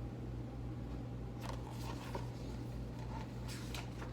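A few faint rustles and soft clicks of a picture book's paper pages being handled and turned, over a steady low hum.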